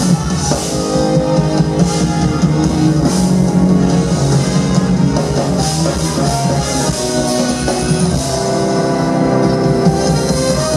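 Live jazz-fusion band playing loudly, with drum kit, electric guitar and bass under sustained pitched notes, steady throughout.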